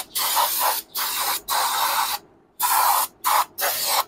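Aerosol can of brake cleaner sprayed in a series of about six short hissing bursts, with a brief pause a little past halfway, as the bare rear wheel hub is cleaned.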